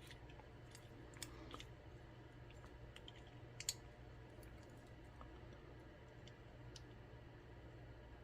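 Faint, scattered small clicks and ticks of metal tools on an ASSA Twin 6000 lock cylinder as its pins are worked out, the sharpest click about three and a half seconds in.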